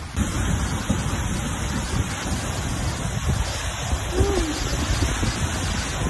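Seljalandsfoss waterfall plunging onto rock: a steady, loud rush of falling water that swells in just after the start, with an irregular low rumble underneath.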